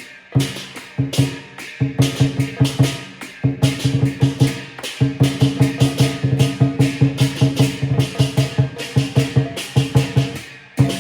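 Lion dance drumming: a large Chinese drum with clashing cymbals beating a fast, steady rhythm, with a short break just after the start and another just before the end.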